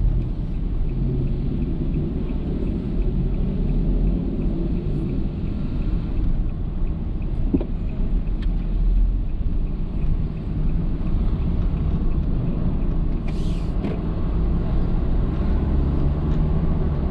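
Steady low rumble of engine and tyre noise inside a car driving slowly on city streets.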